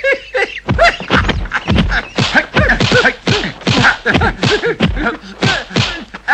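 Martial-arts film fight sound effects: a rapid run of punch-and-block thwacks and swishes, about three blows a second, mixed with the fighters' short sharp shouts. The blows start about a second in.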